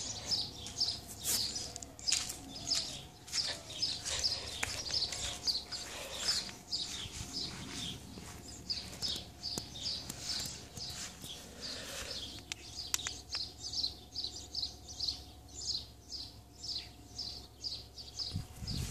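A small bird chirping over and over, about two short high chirps a second, with a faint steady hum underneath.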